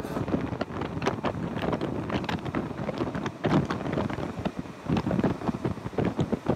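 Heavy wind buffeting a phone's microphone held out of a moving train carriage at speed, over the running noise of the train.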